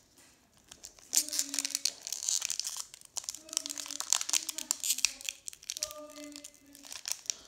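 Foil wrapper of a Pokémon TCG booster pack crinkling and crackling in the hands as it is worked open, in repeated bursts from about a second in.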